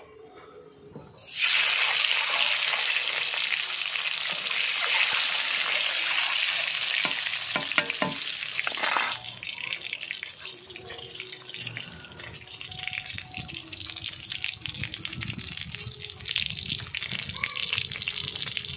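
Peeled boiled eggs frying in hot oil in an iron kadai: a loud sizzle starts suddenly about a second in, stays strong for several seconds, then settles to a quieter steady sizzle with fine crackling.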